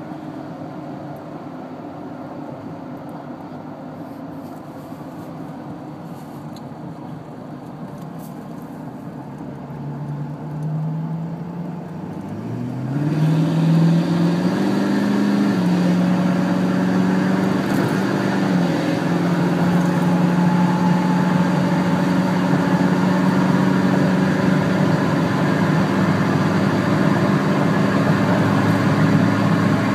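Tuned 2011 6.7-liter Powerstroke V8 turbodiesel with a 4-inch dual exhaust, heard from inside the cab. It cruises at a steady, lower level, then from about ten seconds in the engine note rises, and a few seconds later it gets much louder under wide-open throttle. The pitch drops briefly a little later, then the engine runs loud and steady.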